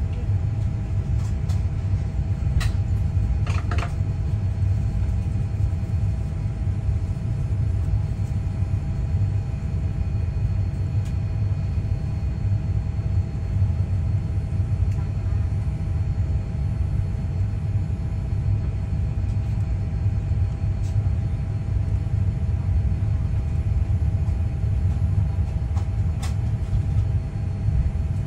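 Steady low rumble inside the cabin of a Boeing 787-9 rolling on the ground at night, engines and wheels at taxi, with a faint steady whine above it. A few small knocks sound about three seconds in.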